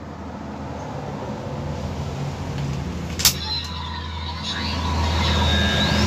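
Kamen Rider Geats DX Desire Driver toy belt playing electronic sound effects through its small speaker: a low hum that grows louder, a sharp click just over three seconds in as the buckle is worked by hand, then steady high tones and rising whistles.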